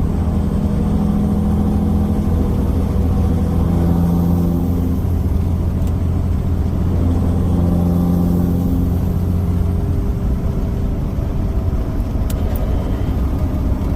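5.9 Cummins diesel in a Ram 3500 with a 5-inch axle-dump exhaust, heard from inside the cab while driving: a steady low engine hum with road noise, its pitch shifting slightly with engine speed.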